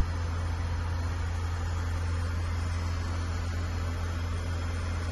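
Cabin noise of a Bombardier Dash 8-400 turboprop in flight: the steady low drone of its propellers under an even hiss, with no change throughout.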